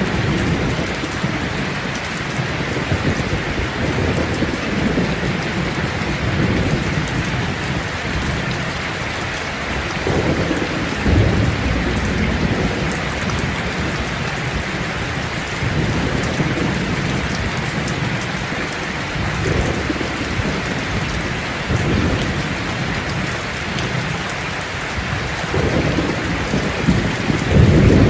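Steady heavy rain with rolls of distant thunder swelling up now and again, the loudest near the end.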